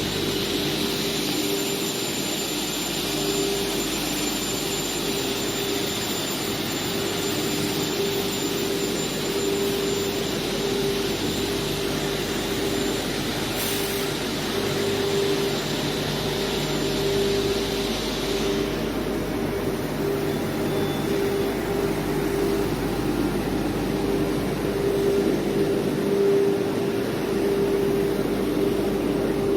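Double-head CNC wood router running: a steady machine whine over a rushing noise, with the high hiss dropping off about two-thirds of the way through.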